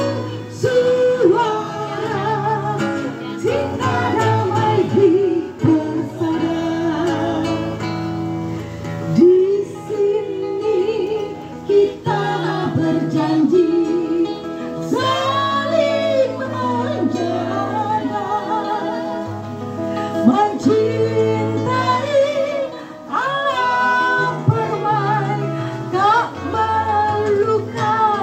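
A woman singing a song into a microphone, with vibrato on her held notes, accompanied by a plucked and strummed guitar.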